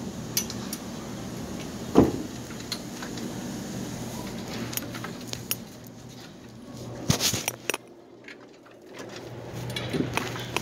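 Handling noise from a hand-held phone being moved about: a sharp knock about two seconds in, scattered clicks, and a cluster of clattering rattles about seven seconds in, over a low steady hum.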